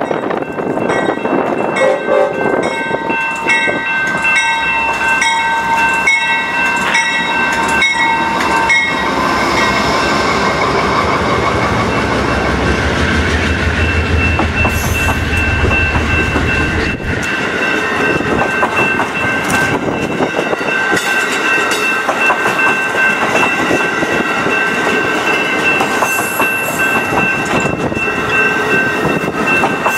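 Amtrak P42DC diesel locomotive and its passenger train pulling past. A bell rings about twice a second for the first nine seconds, the locomotive's engine rumbles by a few seconds later, and then the cars roll past with wheel clatter and a steady high whine.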